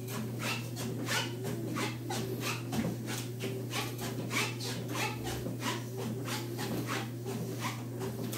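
Treadmill running with someone walking on the belt: a steady motor hum under a rhythmic scuffing of steps, about three a second.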